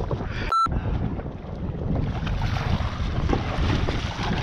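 Wind buffeting the microphone over water splashing and sloshing against an inflatable dinghy as a swimmer in a wetsuit hauls aboard over the tube. A short beep-like tone cuts in about half a second in.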